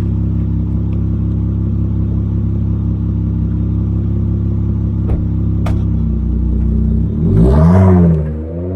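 Dodge Charger SXT's V6 through a Flowmaster Outlaw straight-through exhaust, idling steadily, then revved once about seven seconds in, the pitch rising and dropping back, and starting to rise again at the end.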